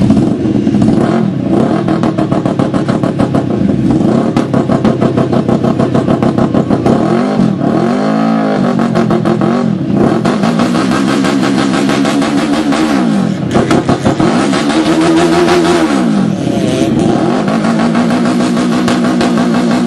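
Engine running loudly through a large-bore exhaust pipe and cone, revved again and again. The pitch climbs and drops in swells, most clearly about 7 to 9 seconds in and again around 14 to 16 seconds.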